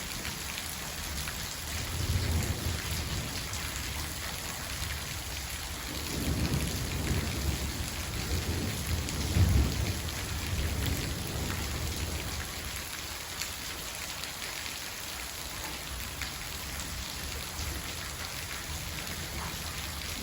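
Steady rain falling, with low rolls of thunder: a short one about two seconds in and a longer one from about six seconds, loudest near the tenth second before fading.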